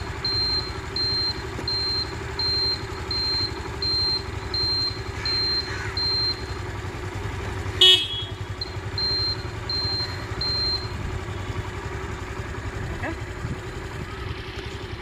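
Suzuki Burgman Street scooter's single-cylinder engine idling, with a high electronic beep repeating steadily over it. About eight seconds in the horn gives one short toot; the beeping stops just before it, comes back for a few seconds, then stops.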